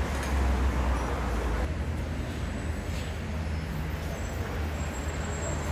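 Street traffic noise: a steady low rumble of passing road vehicles.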